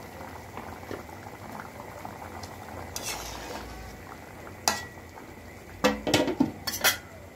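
Curry simmering in a metal wok, bubbling steadily, with sharp metal clanks against the pan, once near the middle and a quick cluster of them near the end.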